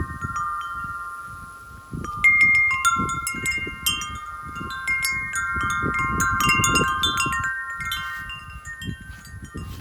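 Tubular metal wind chime ringing in gusty wind, really loud. A few tones linger at first, then a flurry of overlapping strikes starts about two seconds in and thins out near the end, with wind rumbling underneath.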